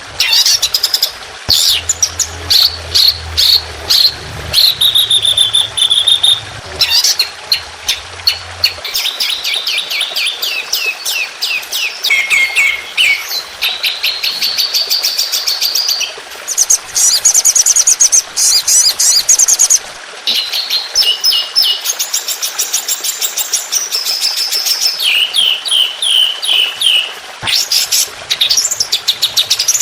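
Songbird singing a fast, varied song without pause: rapid trills, quick runs of repeated chips and sweeping whistles, the kind of 'tembakan' fill-in phrases used to train competition songbirds.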